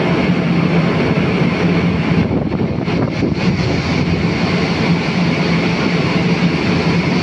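Steady drone of a boat's engine with a constant low hum under a wash of wind and water noise.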